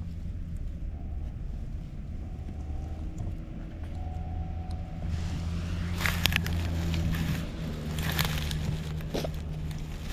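Dry grass crackling and rustling close to the microphone, in several short, louder bursts in the second half, over a steady low mechanical hum.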